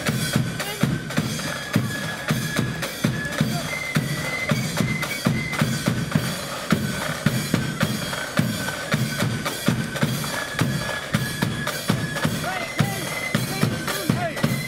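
Marching flute band: rattling side drums and a bass drum beating a steady march rhythm, with a high flute melody over them.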